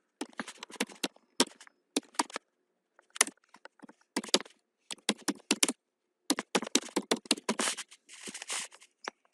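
Typing on a computer keyboard: quick, irregular runs of key clicks with short gaps between words.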